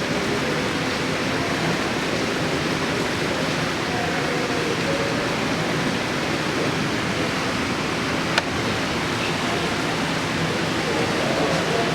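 Steady background hubbub: an even wash of noise with a faint murmur of distant voices under it, and one sharp click about eight seconds in.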